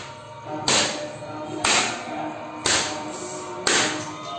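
A cloth slapped down hard on a tiled floor four times, about once a second, with a faint background of music.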